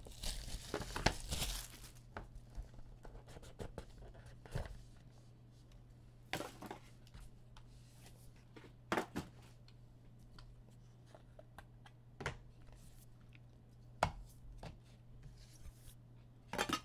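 A trading-card pack's wrapper torn open with a dense rustle, then cards handled and flicked through, giving scattered sharp clicks and taps.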